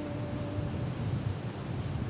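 Steady rumbling wind and ocean surf at the coast, with wind on the microphone. A held low tone fades out under a second in.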